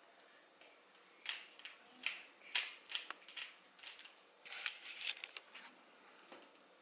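Plastic Rubik's Cube being turned by hand: a run of quick, irregular clicks and clacks as its layers twist, for about four seconds starting just over a second in.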